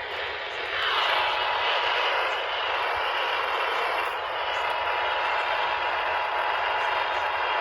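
Steady hiss of radio static from a weakly received broadcast, with a faint steady tone beneath it; the hiss gets louder about a second in.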